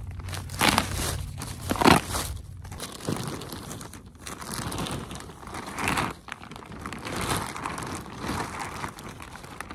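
Plastic bag of garden soil crinkling as it is handled and tipped, with the soil sliding out of it; two loud crackles of the bag come in the first two seconds.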